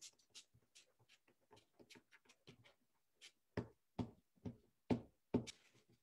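Glue stick rubbed in short strokes over cardstock on a tabletop: faint scratchy clicks and taps, with about five louder knocks in the second half, roughly two a second.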